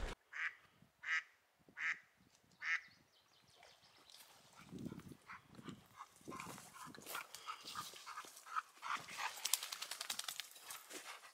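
Ducks on a pond quacking four times in about three seconds; the hiker takes them for black ducks. Then footsteps and rustling through brush and twigs.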